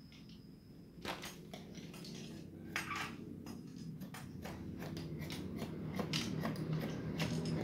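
Fabric scissors cutting through brokat lace: a run of short, irregular snips that starts about a second in, some coming in quick clusters. Under them is a low background hum that grows louder.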